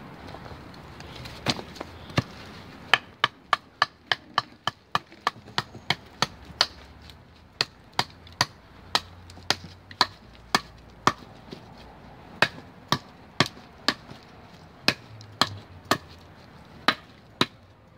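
Benchmade Bushcrafter fixed-blade knife chopping into an upright wooden pole, a long series of sharp strikes about two a second.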